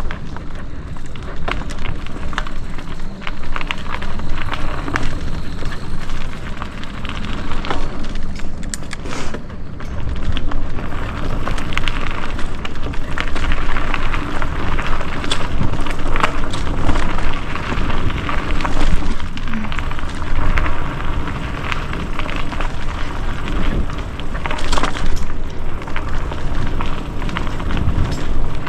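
Mountain bike riding over a dirt singletrack: tyres crackling and crunching over dirt and small stones, with scattered clicks and knocks from the bike and a steady low rumble.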